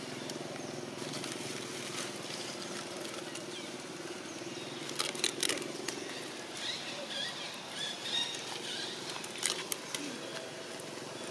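Outdoor background ambience with a steady low hum, a few sharp clicks about halfway through and again near the end, and brief high chirps in between.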